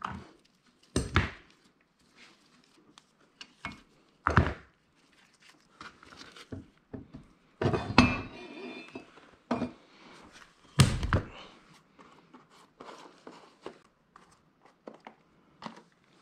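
NP435 truck transmission case and tail housing being moved and knocked against a wooden workbench: four dull thunks a few seconds apart, the one near the middle with a brief metallic ring, and lighter clinks and rustles of parts between them.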